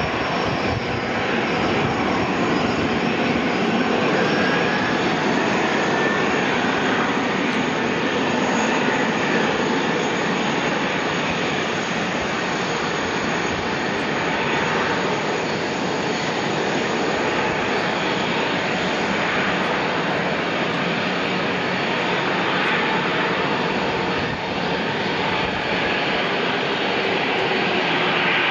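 Airbus A330 airliner's jet engines running at low taxi thrust, a steady rush with a faint high whine.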